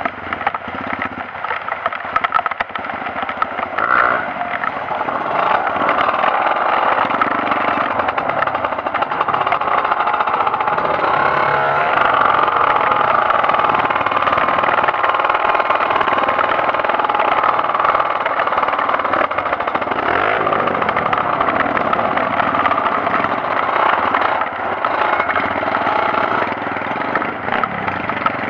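Trail motorcycle engine running continuously, its pitch rising and falling with the throttle, louder from about five seconds in.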